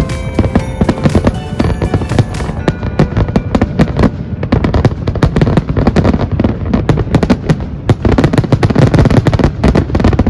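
Fireworks display: a dense, rapid run of bangs and crackles, heaviest near the end. Music plays over the first couple of seconds.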